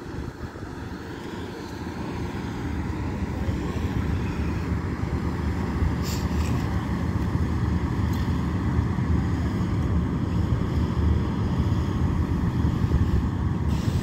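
A vehicle's steady low rumble, getting louder over the first few seconds, with a couple of brief clicks about six and eight seconds in.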